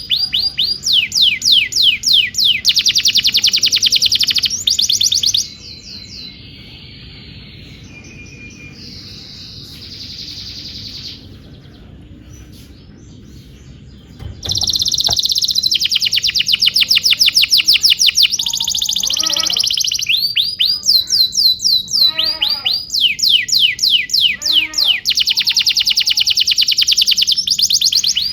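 Domestic canary singing a long song of fast, high trills made of rapidly repeated descending notes. About five seconds in, the song drops to a much softer passage of quieter trills and held notes, and loud rapid trills return about halfway through.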